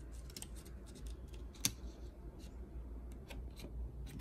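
Quiet handling of a manual die-cutting machine's plate sandwich: cutting plates, die and freshly cut paper being taken apart and handled, with small rustles and light clicks and one sharper click about a second and a half in.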